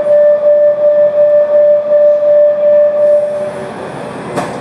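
Metro train door-closing warning tone: one steady, loud, high tone held for about three and a half seconds, then a sharp knock near the end.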